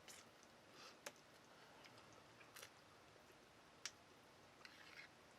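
Near silence, with a few faint, sharp clicks spread out about a second or more apart.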